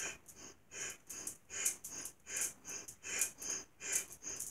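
A woman doing bellows breath: forceful, rhythmic breathing in and out through the nose. There are about five sharp exhales, each followed by a quicker inhale, a little over one full breath a second.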